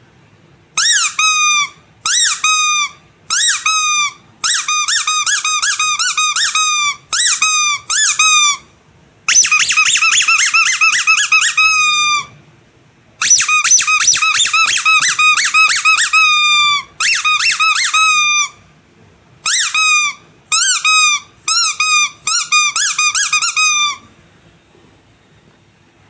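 Squeaky rubber animal toys squeezed again and again in quick runs of short, high squeaks, each dipping slightly in pitch, with brief pauses between the runs.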